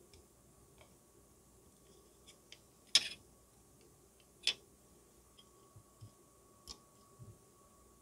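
Plastic parts of a model car kit's interior tub and seats clicking and tapping as they are handled and fitted. There is a sharp click about three seconds in, another about a second and a half later, and lighter ticks scattered around them.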